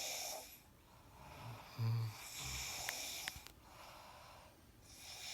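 People snoring in their sleep: slow, hissing breaths repeating about every two and a half to three seconds, with one short, low snore near two seconds in that is the loudest sound.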